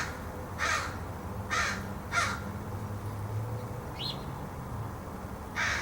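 Crow cawing: three harsh caws in the first two and a half seconds, a pause with one brief higher rising note, then another caw near the end.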